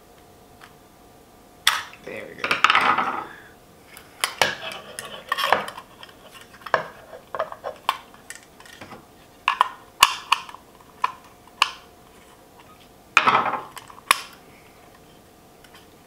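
Scattered sharp clicks and light clatter of a car's plastic ashtray assembly being handled and taken apart by hand, its spring and small parts clicking as they are worked free.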